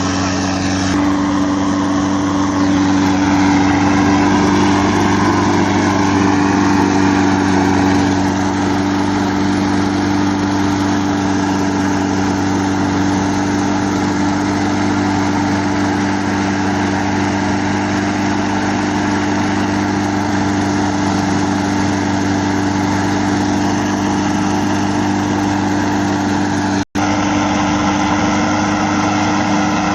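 Steady roar of the rail-end preheating burner for a thermite rail weld, over a constant low engine-like hum. The sound cuts out for an instant near the end.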